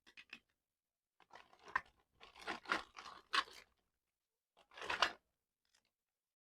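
Crisp tearing and crunching sounds from fresh produce being unboxed, close-miked. A cluster of short strokes runs from about one to three and a half seconds in, and the loudest comes about five seconds in.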